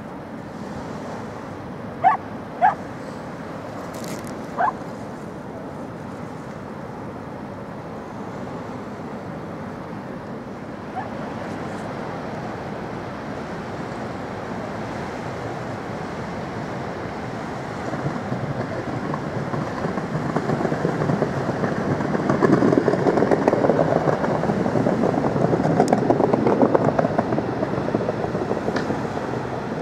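Brittany Ferries' Armorique passing close by: a steady rush of engine noise and bow wash along the hull that swells over the last third as the ship draws level. Near the start, three short sharp animal calls briefly stand out above it as the loudest sounds.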